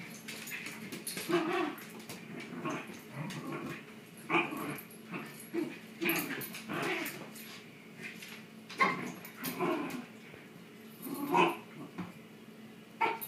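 Two Shiba Inus play-fighting, vocalizing in short, irregular bursts a second or two apart.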